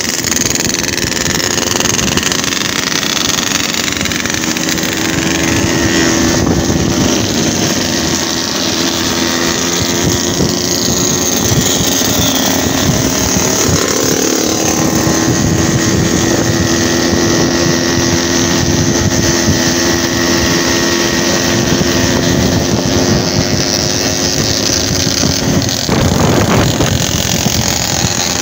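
Yamaha RX-King two-stroke single-cylinder motorcycles running at road speed in a group, a steady engine drone that rises and falls in pitch now and then.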